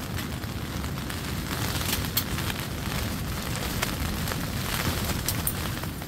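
Wood fire crackling in a small wood-burning tent stove, with a few sharp pops, over a steady rumble of wind and rain on the tent fabric. A packet rustles in hand partway through.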